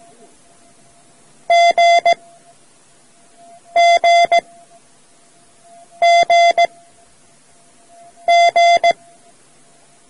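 Morse code letter G, dah-dah-dit, sent four times as a steady beeping tone, a group about every two and a half seconds, over faint tape hiss.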